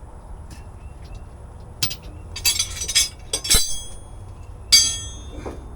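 Metal tools and parts clinking and clanking: a few light clinks, a rattle around the middle, and a louder ringing metal clank near the end.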